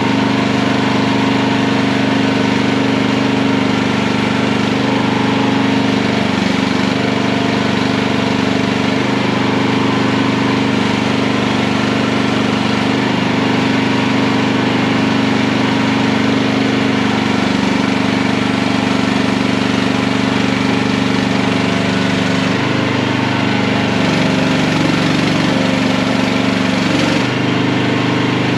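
Mini skid steer's engine running steadily, its pitch dipping and wavering briefly a few times, most of all near the end.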